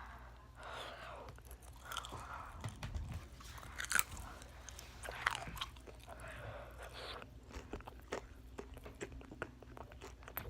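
Close-miked eating of fried chicken: crisp crunching bites into the breading and wet chewing, with many small clicks and two loudest crunches about four and five seconds in.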